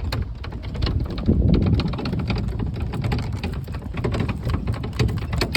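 Golf cart jolting across a bumpy field: dense, irregular rattling and knocking over a low rumble.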